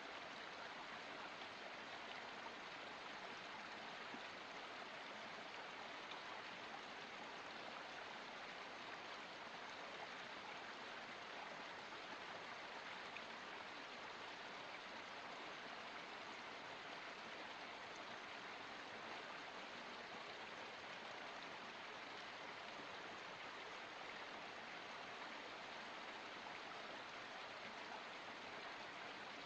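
Forest spring stream flowing steadily: an even, unbroken rush of running water.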